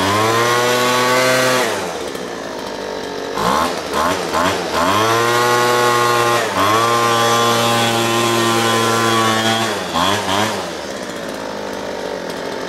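Small two-stroke engine of a 25cc Craftsman/Poulan leaf blower running after a fuel-line and fuel-filter repair. It is revved up, drops back to a lower idle about two seconds in, gets a few quick throttle blips, is held at high revs for about five seconds, then settles back to a lower idle near the end.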